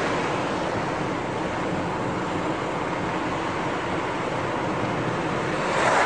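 Steady road and engine noise of a moving car heard from inside the cabin, with a brief louder rush near the end.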